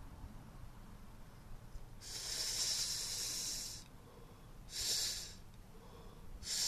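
A man blowing out smoke through pursed lips after a drag on a cigarette: one long exhale of nearly two seconds, then two short puffs about a second and a half apart.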